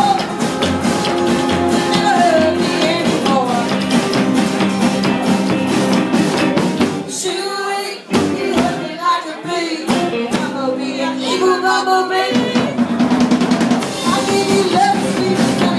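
A band playing loud rock music: a drum kit with snare and bass drum keeping time under guitars and singing. The bass and kick drop out for a few seconds in the middle, then come back in.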